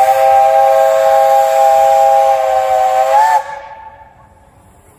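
Steam locomotive whistle blowing one long, loud chord of three notes over hissing steam. It wavers briefly and then cuts off sharply about three and a half seconds in.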